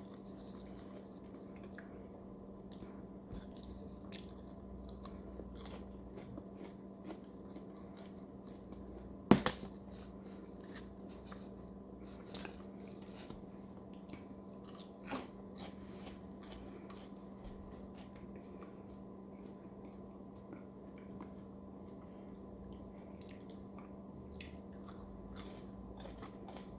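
A person chewing and biting fried fast food close to the microphone, with scattered small crunches and mouth clicks and one sharper click about nine seconds in, over a steady low hum.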